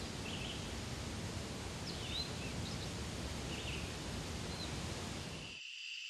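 Outdoor ambience: an even rushing haze with a few faint, short bird chirps. Near the end it cuts off abruptly to a steady, high-pitched insect trill.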